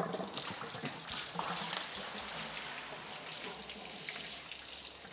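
Water pouring out of a tipped blue 4.5 x 20 inch sediment filter housing and splashing onto the floor as the housing is drained to change the cartridge, with a knock at the very start.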